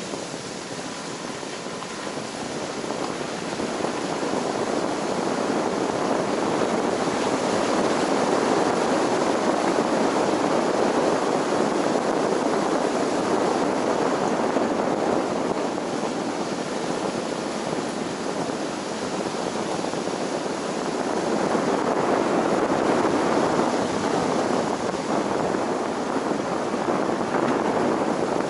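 Road and wind noise from a moving vehicle, a steady rush that swells a few seconds in, eases past the middle and rises again.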